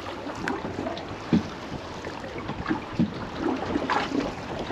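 Sea water lapping and splashing against the hull of a small anchored boat, with a few irregular knocks.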